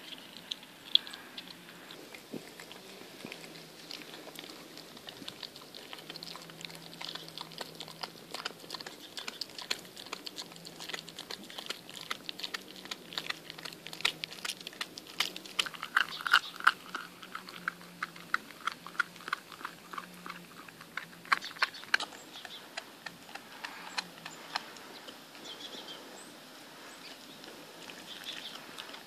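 Appenzeller Mountain Dog cross chewing and biting raw meat: wet clicking chews and tearing bites, with a quick run of bites about halfway through.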